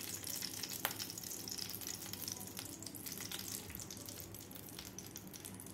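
Homemade ghee melting in a kadhai over a gas flame, giving a faint steady sizzle with scattered crackles and one sharp click about a second in. A spoon stirs the softening lump near the end.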